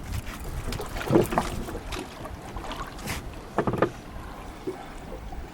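Background noise aboard a small fishing boat on the water: a steady low rumble, with a few short knocks and clatters about a second in and again near four seconds.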